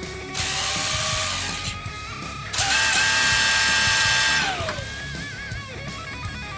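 Brushless electric motors of Traxxas E-Revo RC trucks whining at full throttle with tyres spinning, in two bursts: a short one and then a louder one of about two seconds. Each burst ends with the whine falling in pitch. Guitar music takes over near the end.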